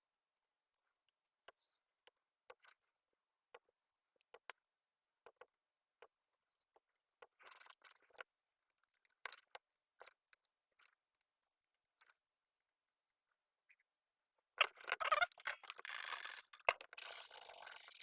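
Scattered small clicks and taps from handling the circuit board and small tools at a workbench. About three-quarters of the way in, a louder, steady scratchy noise starts and continues.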